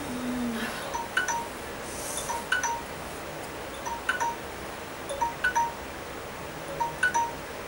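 Chimes tinkling: short, bright metallic pings at uneven intervals, a few a second.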